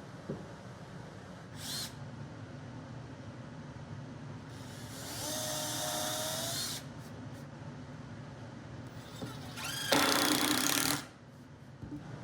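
Handheld power drill running in two short bursts, the motor whining up in pitch as it spins up. The first run lasts about two seconds, and a louder run of about a second comes near the end.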